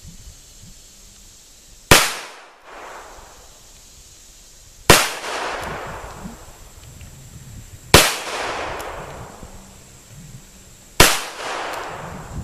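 A .357 Magnum revolver firing .38 Special handloads: four single shots about three seconds apart, each a sharp crack followed by a rolling echo.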